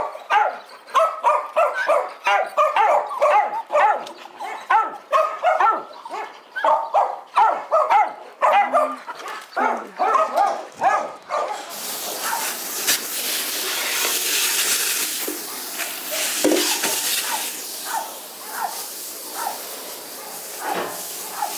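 Kennel dogs barking rapidly and without a break. About twelve seconds in, a hose spray nozzle starts up with a steady loud hiss of water, and the barking goes on under it.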